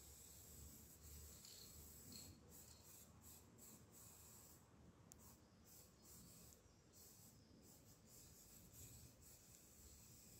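Faint hiss of an aerosol spray paint can, sprayed in long bursts broken by brief pauses, over a faint low rumble.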